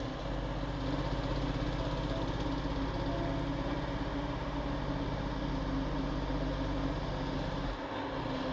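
Diesel engine of a loaded off-highway logging truck running steadily, with a constant low drone that briefly drops away near the end before picking up again.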